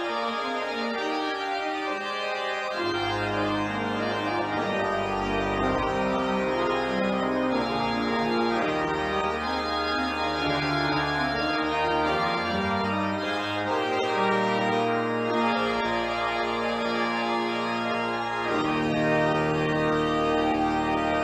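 Pipe organ playing sustained chords, with deep pedal bass notes coming in about three seconds in.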